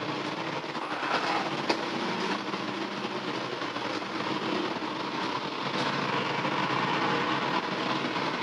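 Steady rushing roar of a kitchen gas burner under a covered pan of simmering stew, with a couple of faint clicks about a second in.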